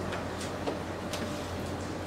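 Steady low electrical hum with a few faint, light clicks.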